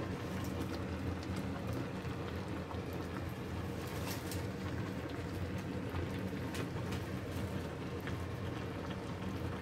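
Hot pot broth boiling in a large stainless steel pot: a steady bubbling with scattered small pops.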